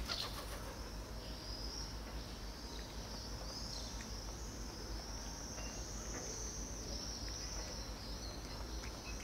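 Steady high-pitched chirring of insects, over a low rumble, with a few faint ticks.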